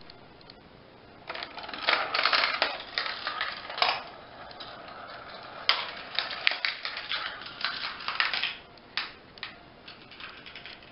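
Marbles rolling and clattering through a GraviTrax plastic marble run: a dense rattle of clicks along the tracks and rails. It starts about a second in, eases around four seconds, picks up again near six seconds and thins out toward the end.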